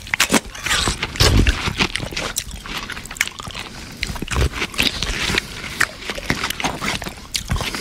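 Close-up chewing of a crunchy mouthful, mukbang-style: a string of irregular crunches and mouth sounds, heaviest about a second in.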